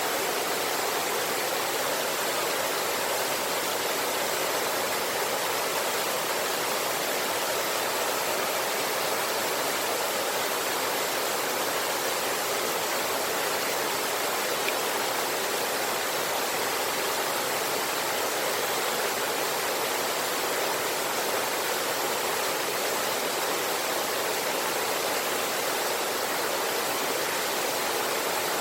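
River water rushing steadily, an even, unbroken roar.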